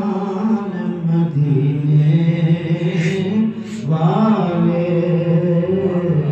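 A man singing an Urdu naat solo and unaccompanied into a microphone, drawing out long held notes that bend slowly in pitch, with a short breath a little past halfway.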